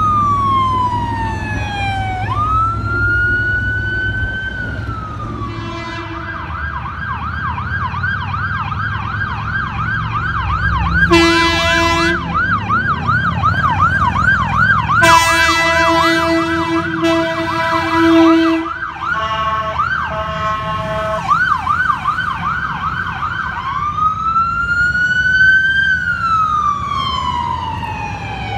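Electronic emergency-vehicle siren. It opens on a slow wail that falls, rises and falls again, then switches to a fast yelp of about three sweeps a second, broken by a short horn blast about 11 seconds in and a longer one from about 15 to 19 seconds. A quick high-low warble follows, then more yelp, and near the end a wail that rises and falls, all over a low traffic rumble.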